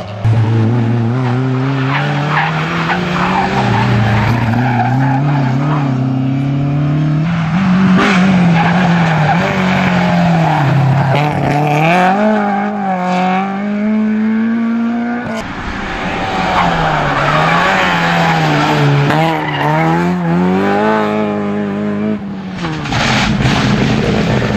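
Rally cars driven flat out past the roadside, one after another: engines revving hard, the pitch climbing and dropping again and again with gear changes and lifts, with tyre and gravel noise as they slide through bends. The last car is a Subaru Impreza rally car.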